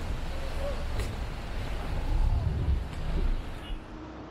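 Motorboat running on the water, with wind buffeting the microphone as a heavy low rumble. About three and a half seconds in the wind noise drops away, leaving a quieter steady engine hum.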